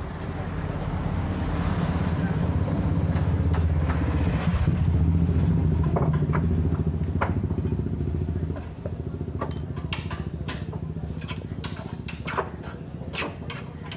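A motor engine runs steadily with a low hum, then drops away after about eight and a half seconds. Then come a string of small metallic clicks and clinks from a T-handle wrench and loose screws on the metal housing of an LPG reducer being taken apart.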